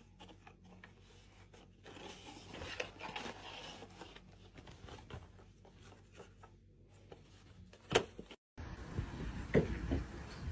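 Light scraping and rustling of a small cardboard box rubbing on carpet as a cat pushes into it and wears it, with a sharp tap about eight seconds in. After a brief break, a low background hum with a few soft knocks.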